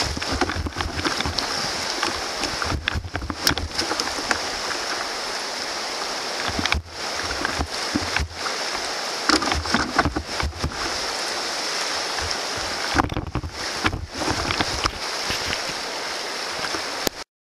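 Whitewater rapids rushing steadily around a canoe, with occasional sharp paddle splashes and knocks. The sound cuts off suddenly near the end.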